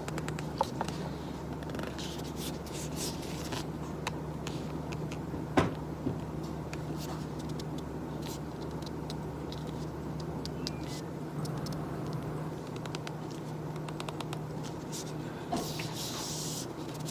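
Scattered light clicks and taps of small objects handled at an office desk over a steady low room hum, with one louder knock about five and a half seconds in. The deepest part of the hum stops about eleven seconds in, and a short hiss comes near the end.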